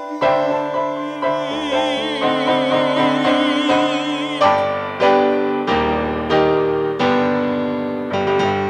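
Piano playing the closing bars of a ballad. Sustained chords come first, under a wavering high note held for a few seconds. Then comes a row of separate chords struck about every two-thirds of a second, the last one left to ring and die away.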